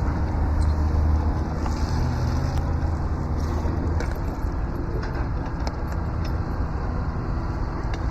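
Koehring 405 dragline's engine running under load, a steady low drone that eases off about four seconds in, with a few light metallic clinks from the rigging.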